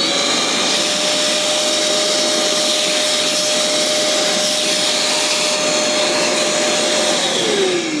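Worx 20 V cordless wet and dry vacuum running with a steady motor whine over a rush of air, sucking at a door-threshold groove through a crevice tool to pull out a stuck stone. About seven seconds in it is switched off and the whine falls in pitch as the motor winds down.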